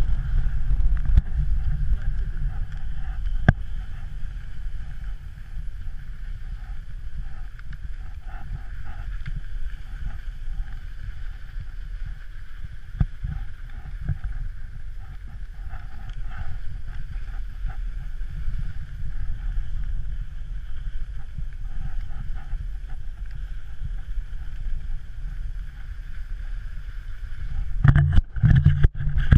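Wind rumbling on the microphone of a pole-mounted action camera carried at speed by a kite-towed skier, over the hiss of skis sliding on snow. It grows louder and rougher near the end.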